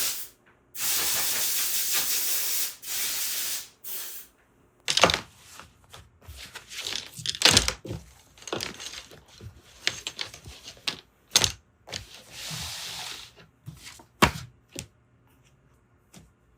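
Several steady hissing bursts, the longest about three seconds, mixed with scattered knocks and clicks; quieter near the end.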